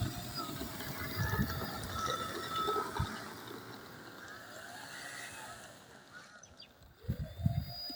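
Quad-propeller RC plane flying outdoors, its motors whining, with the pitch rising and falling as it passes and climbing again near the end. Low gusty rumbles of wind on the microphone come and go.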